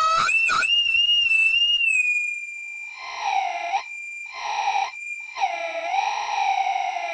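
Crying sound effect: a very high-pitched, wavering wail that settles into one held tone, with lower sobbing cries breaking in three times over it.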